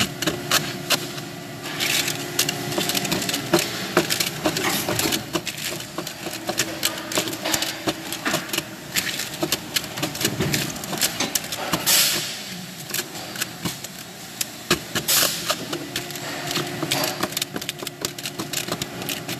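Gloved hands handling parts at a factory workbench: a dense run of small clicks and knocks, with three louder clattering rustles. A steady machine hum runs behind it.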